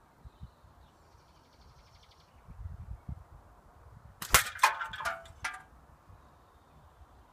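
A single air rifle shot, a sharp crack about four seconds in, followed within a second by several metallic clanks and ringing, typical of a struck tin can tumbling.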